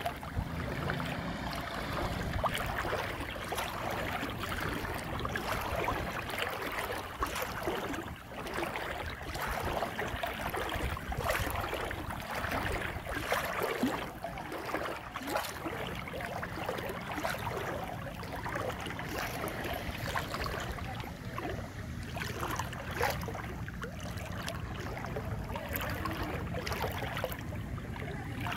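Floodwater sloshing and swishing around a person's legs as they wade through it, in an uneven run of splashes.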